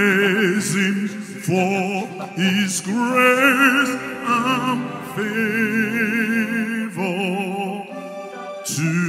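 A man singing live into a microphone through the hall's sound system, in held phrases with wide vibrato and short breaks between them.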